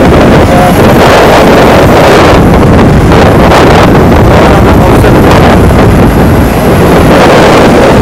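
Loud, gusty wind buffeting the microphone from a moving bus, over the bus's road noise.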